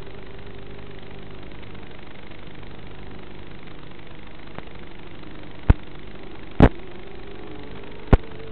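Walkera quadcopter's electric motors and propellers humming under a steady hiss, the pitch wavering up and down as the throttle changes. Three sharp clicks in the second half.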